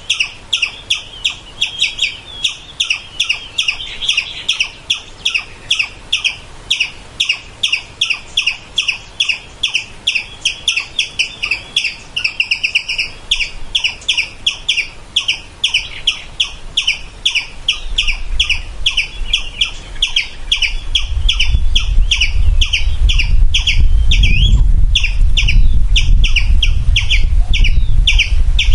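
A squirrel giving a long run of short, sharp alarm calls at about three a second, with a quicker run about twelve seconds in. A low rumble builds from about eighteen seconds in and grows loud in the last seven seconds.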